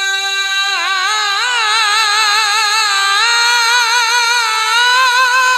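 A man's high singing voice, amplified through a microphone, reciting a naat. He holds one steady note, then about a second in breaks into a long wavering, ornamented melisma that steps higher twice.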